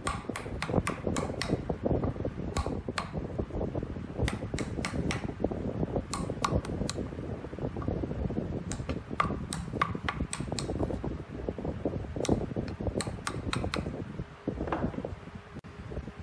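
Turning tool cutting into a rough log spinning on a wood lathe: a continuous rough cutting noise with frequent sharp clicks and knocks.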